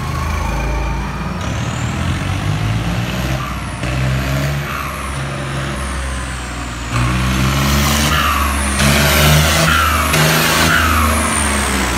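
Turbocharged tractor diesel engine revving, its 61-number turbo whistling in pitch that rises and falls with each rev over a low engine rumble. It gets louder about seven seconds in.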